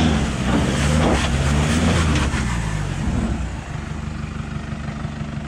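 Four-wheel drive's engine revving up and down repeatedly as it is driven up a rock step. About three seconds in it drops to a quieter, steady idle.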